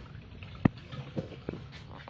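Water sloshing in an inflatable paddling pool as a small child moves in it, with three short sharp splashes, the first the loudest.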